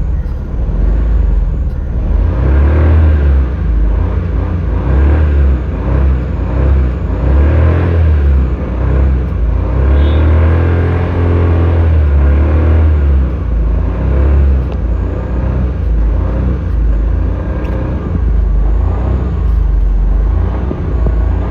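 An old Maruti car's engine being revved repeatedly, its loud low note rising and falling in pitch several times as the throttle is blipped and released.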